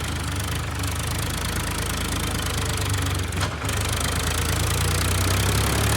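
An engine running steadily at a constant speed, with a heavy low hum.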